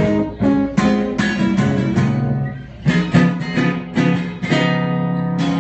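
Amplified acoustic guitar strummed in a run of chords, with a brief dip about two and a half seconds in.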